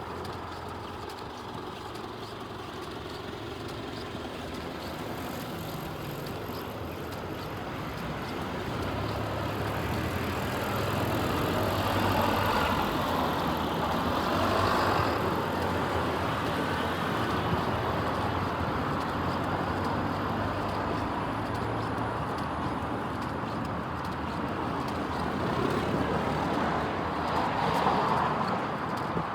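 Traffic noise from a passing vehicle: a steady rushing sound with a low hum that builds to its loudest about twelve seconds in, then holds.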